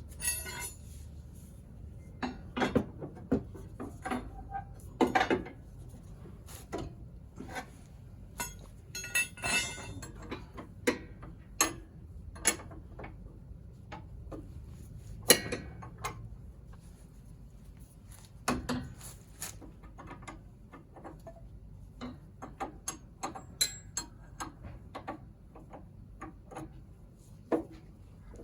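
Irregular metallic clinks and knocks of hand tools and parts being handled during work on the car's suspension stabilizer link, with one sharper knock about halfway through.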